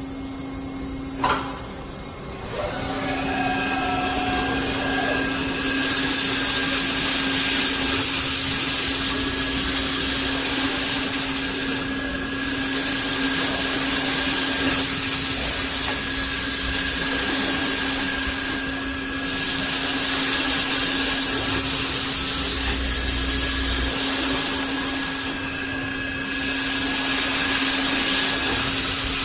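CNC beam drilling machine at work, drilling with carbide bits. A steady motor hum with a thin whine runs under a loud hissing drilling noise. The hiss builds up in the first few seconds and then eases briefly about every seven seconds between cycles.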